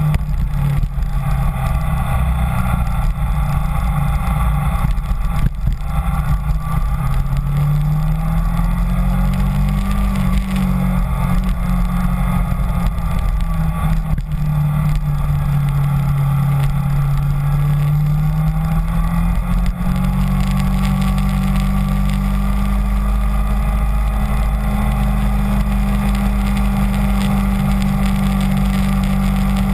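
Kawasaki Ninja 250's parallel-twin engine running while riding, its pitch rising and falling with changes in speed and then holding steady for the last third.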